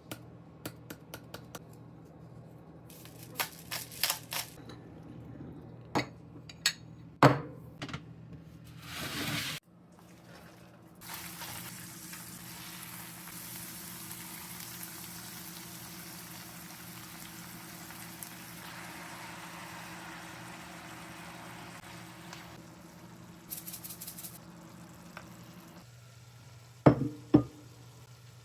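Kitchen prep sounds: scattered clinks and knocks of utensils and dishes, then a steady sizzle of food frying in a pan for about fifteen seconds, with a few sharp knocks near the end. Background music plays underneath.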